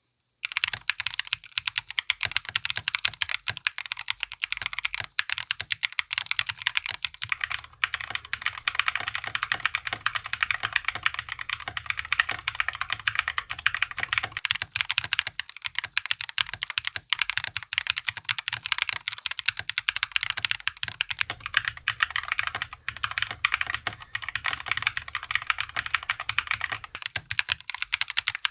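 Continuous fast typing on a mechanical keyboard with Gateron Beer tactile switches, in a wooden GK64x case with no case foam: a dense, even stream of key clacks that starts abruptly.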